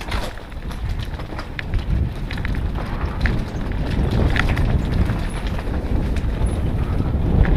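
Mountain bike rolling fast down a rocky dirt trail: a steady low rumble of tyres on the ground and wind on the camera's microphone, with scattered clicks and rattles from the bike and stones, growing a little louder.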